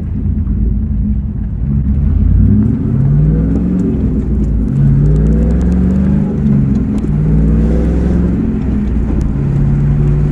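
1998 Pontiac Trans Am's LS1 V8 engine and exhaust heard from inside the cabin while driving: a deep, loud rumble whose pitch climbs, drops back and climbs again several times as the car accelerates.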